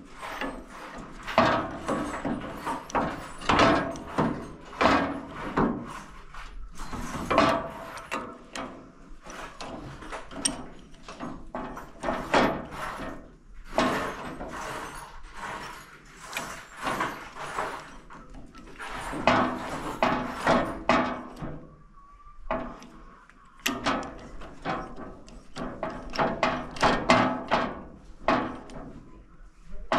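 Irregular clanks, knocks and clatter of hand tools and metal parts being handled while a hydraulic remote-valve kit is fitted to a tractor, in clusters with short pauses.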